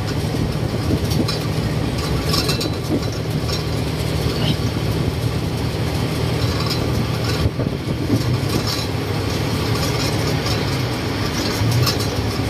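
Songthaew pickup truck under way, heard from its open rear passenger bed: steady engine hum under road and wind noise, with scattered light rattles.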